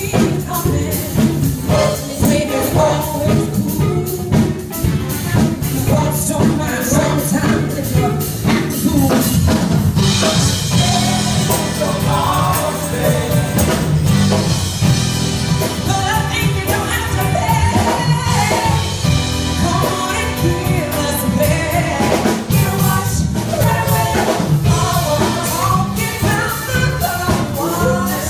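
Live soul band playing with female lead and backing vocals over drum kit and electric guitar, a steady beat throughout; the singing and a brighter cymbal wash come in about ten seconds in.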